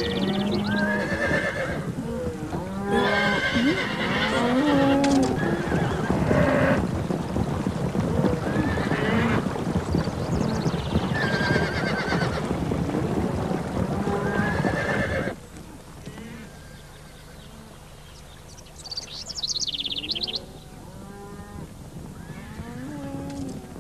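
Soundtrack din of an advancing army's animals: many overlapping calls from horses neighing and cattle lowing over a dense noisy rumble. It cuts off abruptly about fifteen seconds in, leaving a much quieter stretch with a few faint calls.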